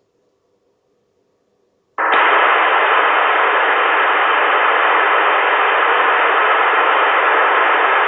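Uniden SD200E scanner's speaker bursting into loud, steady radio static hiss about two seconds in, after near silence.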